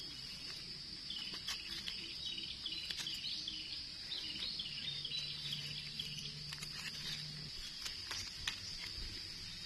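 Steady high-pitched trilling of insects such as crickets, with a run of quick repeated chirps through the first half and scattered small crackles of dry leaf litter being handled.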